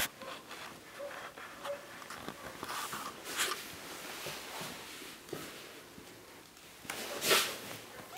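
Soft rustling and scuffling of British kittens playing on a fabric bedspread, with louder rustles about three seconds in and again near the end.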